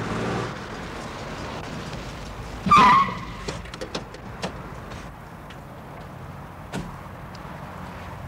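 Car engine running, with one short, loud squeal about three seconds in, followed by a few scattered clicks and knocks.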